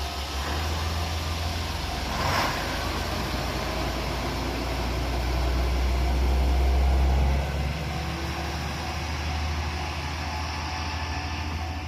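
A vehicle engine running with a steady low drone. It grows louder for a few seconds and drops off suddenly about seven and a half seconds in.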